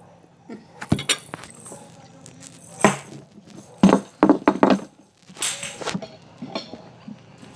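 Irregular knocks and clinks: a string of sharp hits at uneven intervals.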